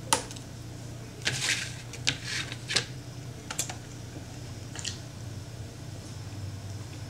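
Clear plastic clamshell container crackling and snapping as it is handled, with a string of sharp irregular clicks in the first five seconds. A low steady hum runs underneath.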